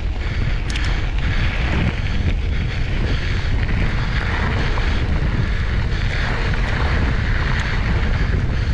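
Steady rush of wind buffeting the microphone, with a heavy low rumble, as a mountain bike rolls along a dirt singletrack; a few faint clicks and crunches of the tyres on the trail come through it.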